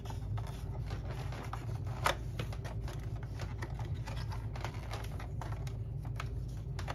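Small irregular plastic clicks and taps as fingers work the old drive belt off the motor pulley of a Hoover upright vacuum's brush head, with one sharper click about two seconds in.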